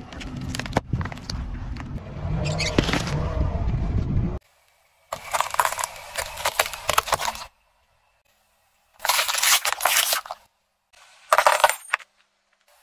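Car tyre crushing a string of objects one after another. First a juice carton is squashed with a low rumble lasting about four seconds, then carrots crunch and snap. Near the end come two shorter bursts of cracking, the last from small corked tubes of coloured powder breaking.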